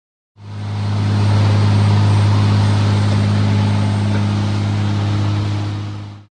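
Boat motor running steadily at speed: a constant low engine hum under a rushing of wind and water. It starts just after the beginning and stops abruptly just before the end.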